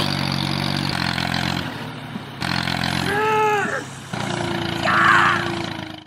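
Tractor engine running steadily, with a brief rising-and-falling pitched call about three seconds in and a short louder rush about five seconds in; it cuts off suddenly at the end.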